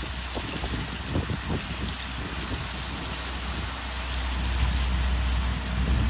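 Wind rustling dry corn leaves and husks with a dense, rain-like crackle, over a low rumble that swells about four seconds in.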